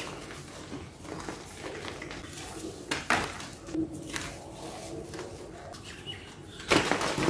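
Hands crumbling black-dyed reformed gym chalk: a dry, gritty rustle of chalk pieces and powder, with a few sharp crunches around three to four seconds in and a loud crunch as a block is crushed near the end.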